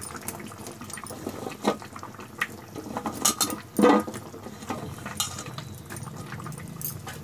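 Moringa drumstick pieces dropped by hand into curry gravy in a kadhai: a run of irregular soft splashes and knocks against the pan, the loudest about four seconds in.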